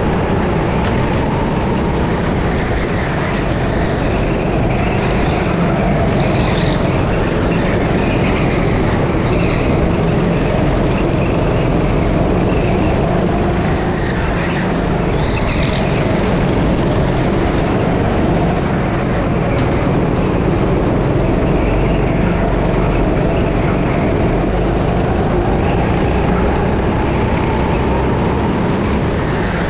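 6.5 hp Dino rental-kart engine running flat out, its pitch climbing and falling as the kart speeds up and slows through the corners. A few brief high squeals come through between about six and ten seconds in and again around fifteen seconds.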